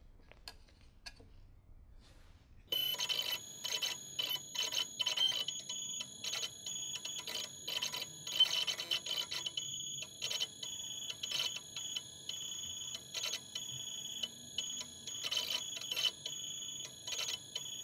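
CNC machine's stepper motors whining in high tones as the axes move a laser head over a board, the sound starting about three seconds in and then stopping and restarting many times with each move.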